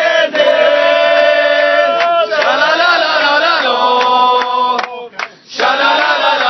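A group of people loudly chanting 'shalalala' together, in unison, with long held notes and rising and falling phrases, and a short break a little after five seconds in.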